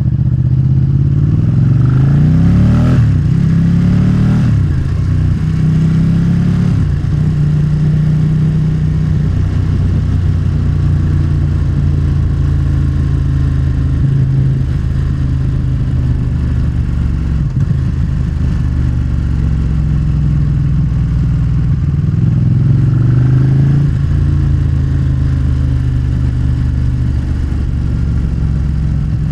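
Motorcycle engine running under way, its pitch sweeping up and down with revs a few seconds in and again about three quarters of the way through, otherwise holding steady.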